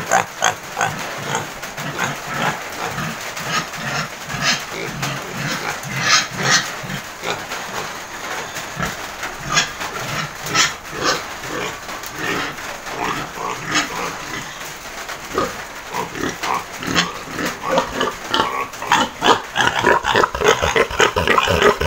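Domestic pigs in their pens grunting over and over.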